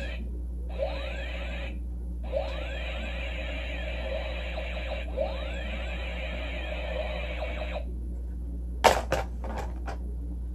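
Tinny electronic warbling sound effects, many rising and falling chirps together, in three stretches separated by short gaps, followed about nine seconds in by a few sharp knocks.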